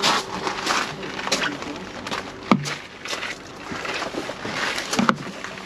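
Footsteps crunching on gravel, with a sharp click about two and a half seconds in.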